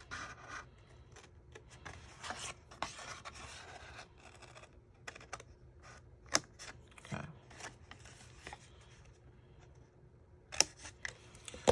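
Scissors cutting through cardstock: a run of short snips and the rasp of the blades along the paper, with a few louder clicks.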